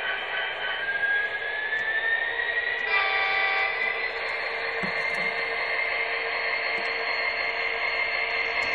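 Sound system of an MTH HO-scale Union Pacific SD70ACE model locomotive playing recorded diesel engine sound through its small onboard speaker as it runs: a steady engine drone with a whine that rises in pitch over the first few seconds. A brief extra tone, under a second long, comes in about three seconds in.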